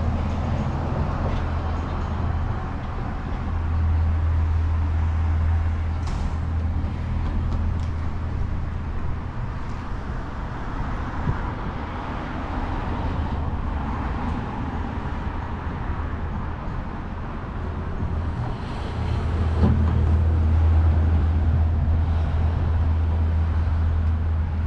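Street traffic noise: a steady hiss of passing vehicles with a low engine rumble that swells twice, as if a car or bus goes by, first around four seconds in and again in the last few seconds.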